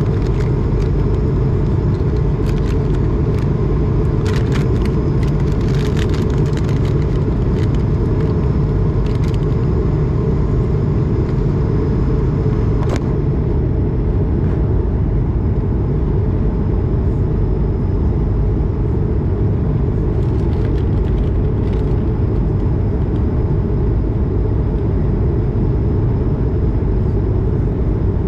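Steady low roar of an Airbus A220's Pratt & Whitney PW1500G geared turbofan engines and rushing air, heard from inside the passenger cabin during the climb. There are a few faint clicks in the first half.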